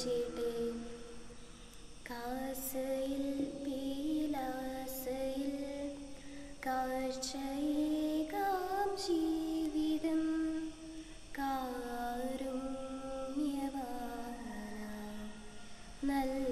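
Slow liturgical hymn sung in Malayalam by a single voice, in drawn-out phrases of a few seconds each with short breaks between them.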